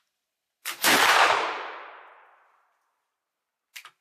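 Hall M1819 flintlock breech-loading rifle firing a black-powder charge once. A short snap of the lock and priming flash comes just ahead of the main report, which rings out and fades over about a second and a half. Two light clicks follow near the end as the rifle is handled.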